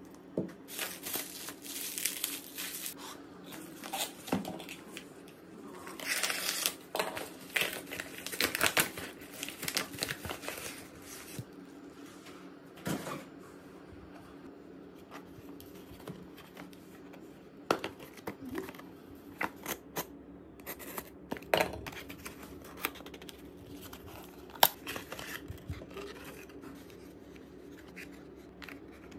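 Packaging and a small cardboard box being handled and opened: irregular bursts of crinkling and tearing, busiest in the first half, then scattered sharp taps and clicks.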